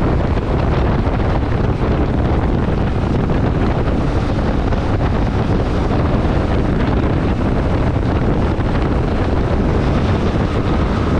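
Steady wind rush over the microphone while riding a Yamaha Tracer 7 motorcycle, with its parallel-twin engine and road noise running underneath.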